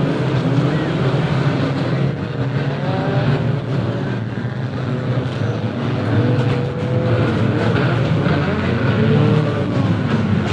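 Banger racing cars' engines running hard as a pack, several engines rising and falling in pitch at once as they rev and lift around the track.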